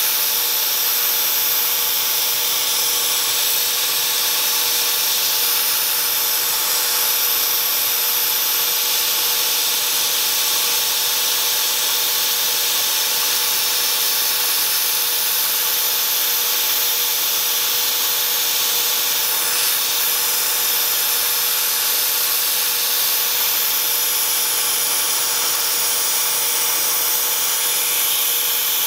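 Bridgeport milling machine running steadily as its end mill cuts a fuller groove along a steel Bowie knife blade, with a steady hum from the spindle. A constant hiss comes from the compressed-air line blowing chips out of the cut.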